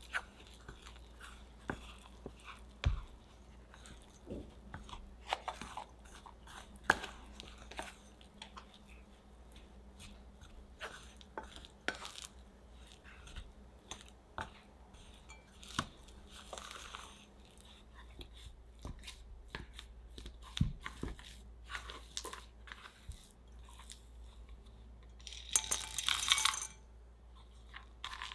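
A plastic bench scraper cutting and scraping through a crumbly flour, cocoa and butter mixture in a glass bowl, with scattered sharp taps of the scraper against the glass. Near the end, a brief dense rattle as chocolate chips are tipped into the bowl.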